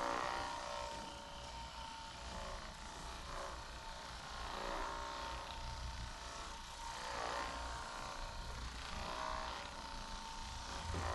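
A small electric motor running with a steady hum that swells and fades every couple of seconds.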